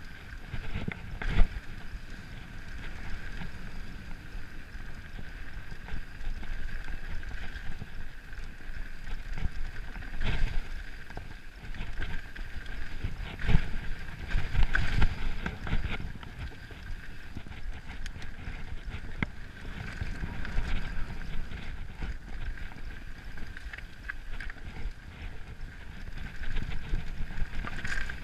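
Mountain bike descending a dirt trail at speed: tyres rolling over dirt, the bike rattling, and sharp knocks over bumps now and then, the loudest about a second in and again around the middle.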